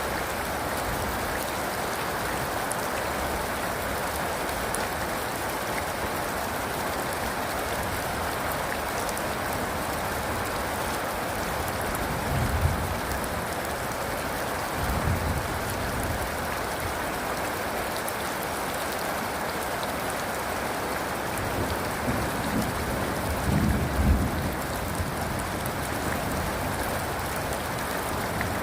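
Steady rain, with short low rumbles of thunder around the middle and again near the end.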